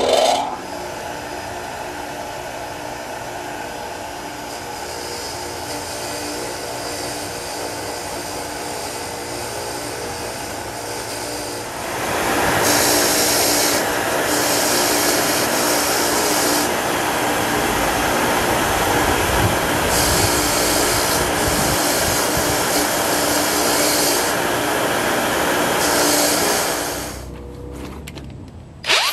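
Bench grinder switched on and running steadily; about twelve seconds in, old hardware is pressed against the spinning wheel to clean it, and the sound turns louder and harsher. It drops off near the end.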